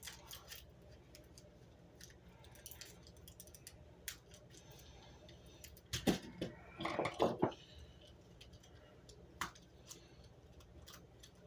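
Light clicks and scrapes of small tools and parts being handled on a workbench during soldering work, with a louder cluster of scraping clicks about six seconds in, over a faint low hum.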